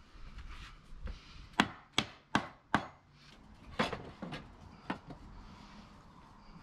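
Claw hammer striking a pressure-treated timber frame: four sharp blows in quick succession about a second and a half in, then a few lighter wooden knocks. The blows are knocking loose an upright that was fitted the wrong way round.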